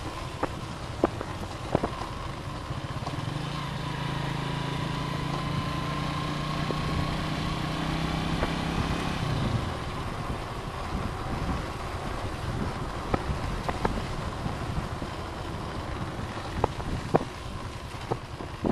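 Motorcycle engine running at a steady pace on a rough dirt road, with scattered knocks and rattles from bumps and a noisy rush of wind and road. The engine note fades about halfway through.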